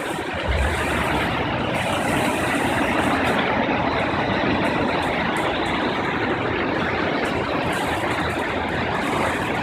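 Floodwater rushing and churning over logs and debris in a concrete creek channel, a steady even noise, mixed with freeway traffic from the overpass.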